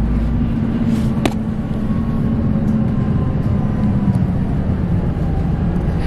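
Steady low rumble and engine drone inside a moving vehicle, with one sharp click about a second in.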